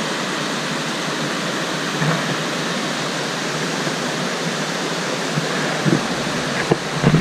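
Whitewater rushing over a rock ledge and through river rapids: a steady, even rush of falling water.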